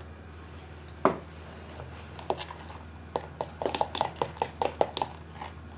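A metal spoon knocking and clicking against a plastic mixing bowl as a stiff almond-and-egg batter is stirred. There is one sharp knock about a second in, then a run of quick light clicks over the last three seconds, above a steady low hum.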